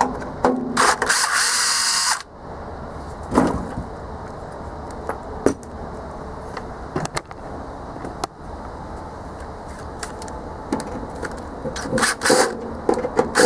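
Cordless drill spinning a socket to back out the bolts on a furnace blower housing's motor mount: a run of about a second and a half starting about a second in, and a shorter run near the end. Clicks and clanks of metal handling fall in between.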